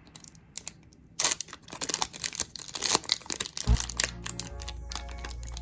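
Sports trading card pack's wrapper crinkling and tearing as it is opened, starting about a second in. Background music with a low steady beat comes in partway through.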